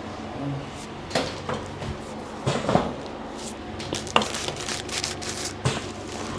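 About half a dozen short, sharp clicks and cracks at irregular intervals during a chiropractic adjustment, the loudest around three and four seconds in.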